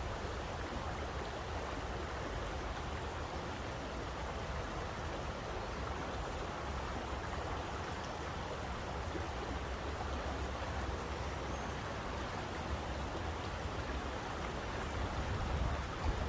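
Steady rushing of flowing water, with a low rumble underneath.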